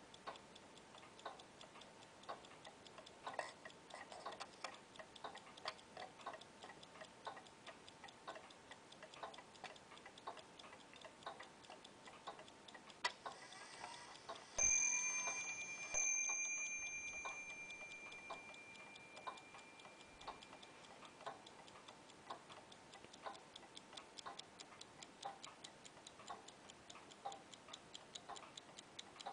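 Mechanical tourbillon watch movement ticking steadily and softly. About fourteen and a half seconds in, something is struck twice, about a second and a half apart, and each strike leaves a clear ringing tone that fades over a few seconds.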